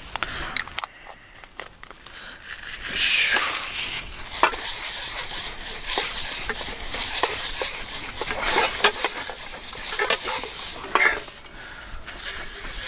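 Paper towel rubbing cooking oil around a non-stick frying pan: a scratchy, hissing rub from about three seconds in, with light clicks and knocks as the pans are handled.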